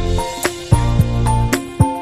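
Upbeat background music: plucked or struck melodic notes over a bass line with a regular beat.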